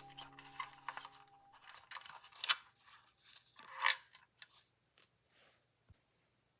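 Crisp short snips and rustles of paper and stationery being handled, like scissors cutting paper, while background music fades out in the first second or two.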